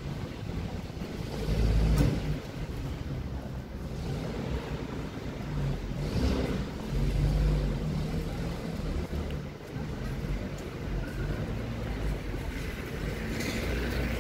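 City street ambience: a low rumble of road traffic that swells and fades several times as vehicles pass.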